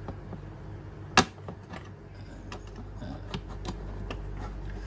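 Small clicks and taps of a magnetic levitation set's plastic rod and ring magnets being positioned and nudged on its plastic base, with one sharp click about a second in.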